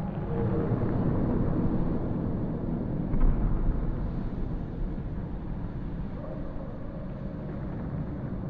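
Outdoor ambience: a steady low rumble, louder over the first few seconds and then easing, with a brief low bump about three seconds in.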